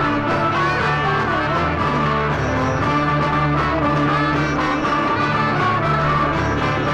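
Music with brass instruments, trumpets and trombones, playing continuously.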